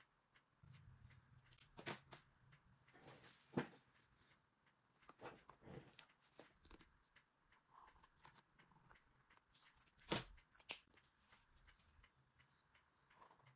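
Quiet desk handling sounds: plastic rulers and a stencil set down, held and shifted on notebook paper, with scattered light clicks and a few sharper taps.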